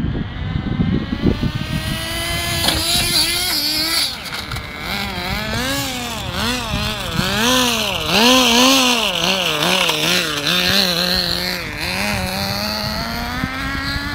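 Radio-controlled car's motor revving up and down repeatedly, its pitch rising and falling in quick swells, then climbing steadily near the end.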